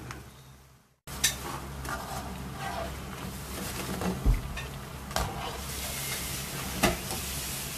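Potato and onion pakoras deep-frying in hot oil in a wok, a steady sizzle that starts about a second in after a brief silence. A wire spider skimmer knocks sharply against the pan a few times as the pakoras are turned and lifted.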